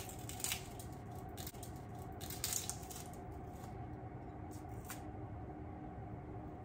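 Dry onion skin being peeled off by hand, giving a few short papery crackles, the loudest about two and a half seconds in, over a steady faint hum.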